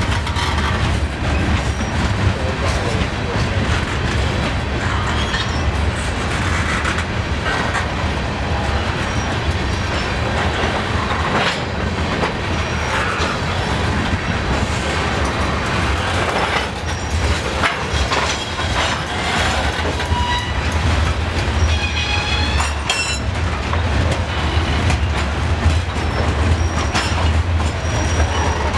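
Freight train of covered hoppers and tank cars rolling past close by: a steady rumble with the clicking of wheels over the rail joints. A brief high wheel squeal comes about three-quarters of the way through.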